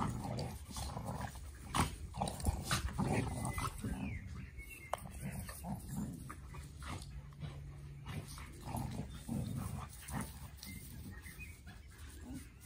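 Two beagles play-fighting, making low, irregular play growls and grumbles amid scuffling.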